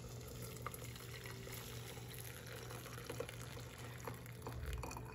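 Hot herbal tea poured from a pan through a mesh tea strainer into a steel cup: a steady splashing trickle of liquid, with a few small clicks.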